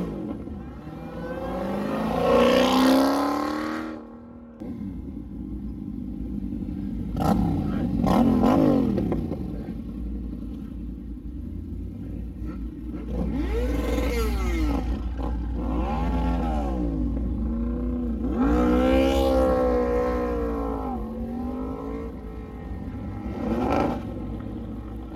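Muscle-car engines revving and pulling away one after another, about six rising and falling revs over a steady low idling rumble.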